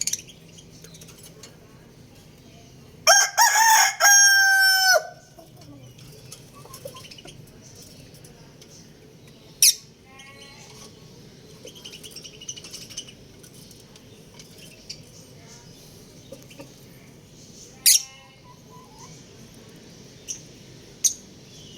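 A rooster crows once, about three seconds in: a cock-a-doodle-doo of several joined notes ending on a long held note, lasting about two seconds. Faint bird chirps and a few short, sharp clicks follow over a low background.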